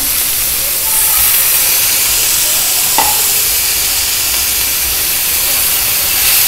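Chopped onion and garlic sizzling in hot oil in a cast-iron pan, the hiss growing louder about a second in as they hit the oil, then being stirred with a spatula. There is a light tap near the middle.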